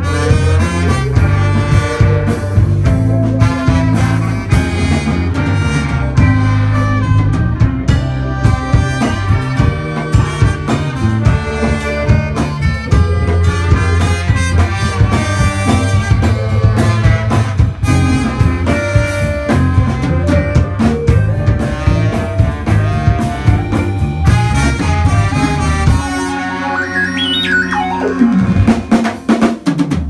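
Live instrumental band music: a horn section of saxophone, trumpet and trombone over electric bass, drum kit, electric guitar and keytar synthesizer. Near the end the low end drops out for a few seconds, then the full band comes back in.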